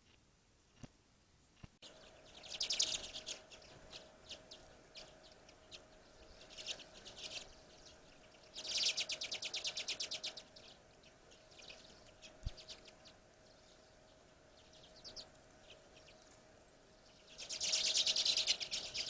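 Small songbirds calling at a backyard feeder: several loud, fast rattling trills and scattered short chips, starting about two seconds in after near silence.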